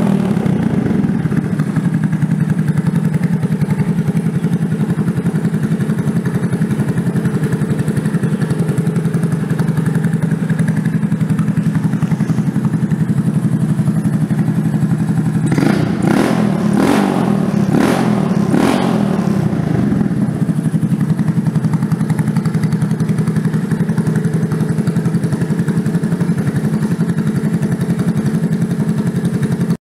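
2014 Honda Grom's 125cc single-cylinder four-stroke engine idling steadily through an aftermarket MNNTHBX exhaust, with a few quick throttle blips just past halfway.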